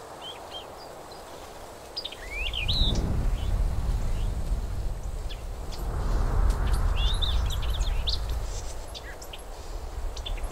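Small birds chirping, with short calls and quick rising notes, over a loud low rumble that comes in about two seconds in and swells and eases.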